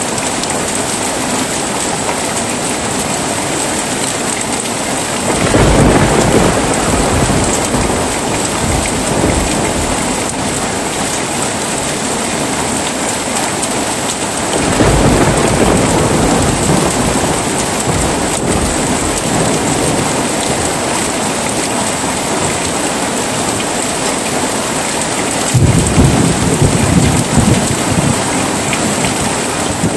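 Heavy rain falling steadily, with three rolls of thunder that each rumble for several seconds: one about a fifth of the way in, one near the middle, and one near the end.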